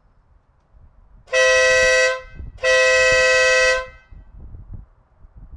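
Denali SoundBomb Split dual-tone air horn blasting twice: a short honk, then a slightly longer one about half a second later. Each blast is a steady two-note chord that starts and stops sharply.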